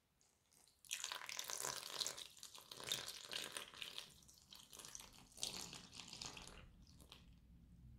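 Whole milk poured in a stream onto flour and sugar in a mixing bowl, splashing and trickling. The pour starts about a second in and turns to a quieter, lower trickle near the end.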